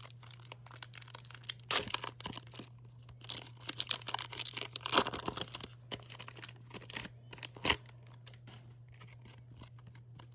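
Foil wrapper of a baseball card pack being torn open and crinkled, in irregular crackling bursts that die away near the end, over a steady low electrical hum.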